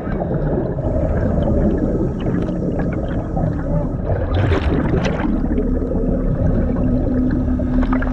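A diver underwater, heard from the diver's position: a continuous rush of breathing and gurgling exhaust bubbles, with a burst of louder bubbling about halfway through. Short, muffled and distorted exchanges come over the diver-to-surface radio.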